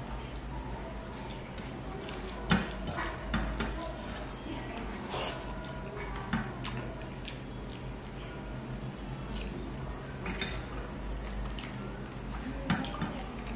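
Fingers mixing rice and fish curry on a stainless-steel plate: soft wet squishing with scattered sharp clicks and taps of fingers and bangles against the steel, a few of them louder.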